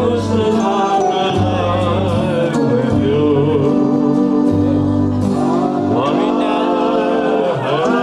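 A song sung with keyboard organ accompaniment: a bending sung melody over steady held chords and bass notes.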